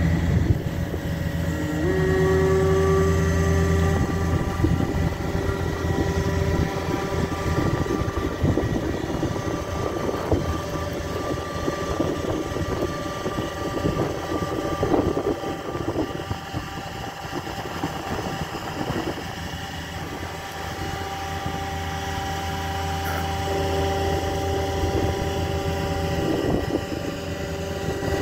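A GMC C8500 digger truck's engine running steadily, with a pitched whine from the Terex Commander digger derrick's hydraulics as the boom and auger are moved. The whine comes in about two seconds in and again near the end, with irregular rattling in between.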